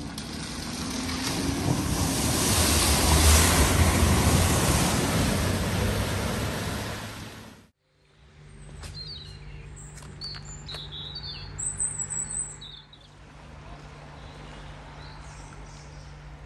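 A car drives through deep flood water at a ford: engine rumble and heavy splashing swell to a peak and fade over about seven seconds. It cuts off suddenly, and what follows is quieter: birds chirping, a few clicks and a steady low hum.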